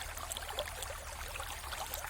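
Mountain river flowing, a steady babble of running water full of small quick splashes and trickles, with a steady low rumble underneath.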